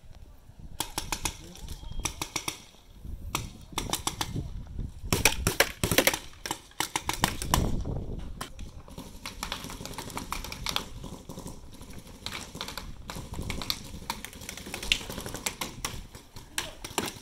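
Paintball markers firing rapid strings of shots, a quick run of sharp pops that starts about a second in and comes in bursts, then runs almost without a break through the second half.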